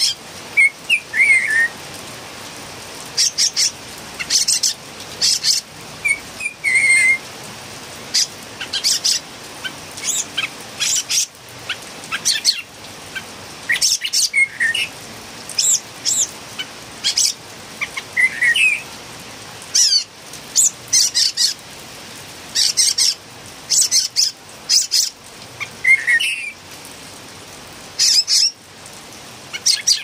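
A Philippine bulbul calling over and over, really noisy: short, sharp, high-pitched calls in quick clusters every second or two, with now and then a lower, falling, warbled note.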